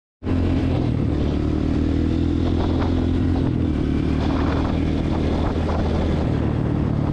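Motorcycle engine running at a steady pitch, cutting in abruptly just after a brief gap at the start.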